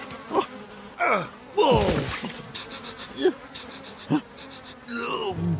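Cartoon sound effect of flies buzzing around a compost heap, overlaid by several short sliding pitched sounds; the loudest is a falling sweep about two seconds in.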